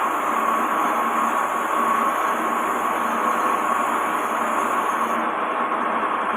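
A machine running steadily while a radius cutter cuts a roller: an even mechanical noise with a held whine.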